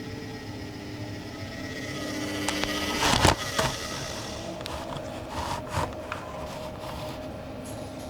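Samsung Ecobubble WF1804WPU front-loading washing machine running, with a steady motor whine as the drum turns. About three seconds in, a cluster of sharp knocks from the drum, and a few more knocks a couple of seconds later. The owner suspects broken shock absorbers or bearings.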